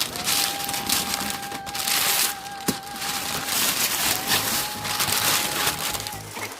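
Wrapping paper being torn and crumpled off a present, a dense crackly rustling with a sharp snap about two and a half seconds in. A steady thin tone runs under it, broken briefly near the middle.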